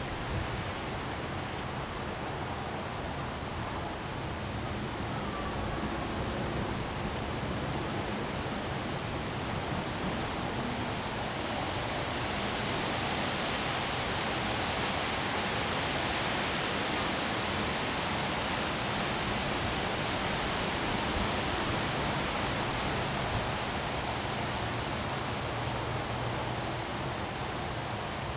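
Windstorm with rain: a steady rushing hiss of wind and falling rain that swells stronger for several seconds in the middle, then eases back.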